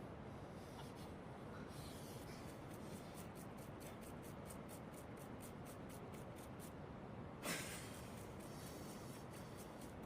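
A quick, even run of light clicks or snips, about five a second, over a steady low hiss, followed near the end by one brief, louder scraping rustle.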